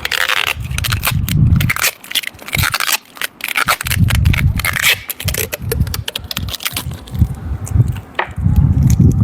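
Plastic water bottle crackling and crinkling as it is handled and squeezed in repeated bursts, forcing water into a clogged air-conditioner drain hose to flush it out.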